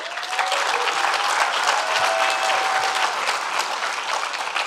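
Large audience applauding, a dense clatter of many hands that starts at once and eases slightly near the end.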